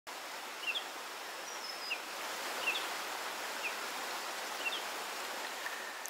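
Rushing stream rapids, a steady hiss of running water, with small birds giving short chirps about once a second.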